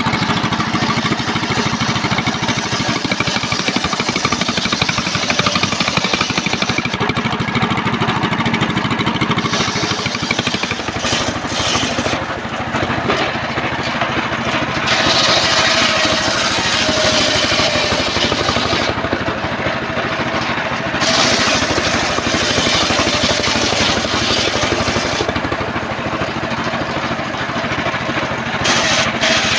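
A homemade engine-driven table circular saw running continuously, its blade ripping through old trembesi (rain tree) wood. The harsh cutting noise rises over the steady engine drone during cuts and falls back between passes.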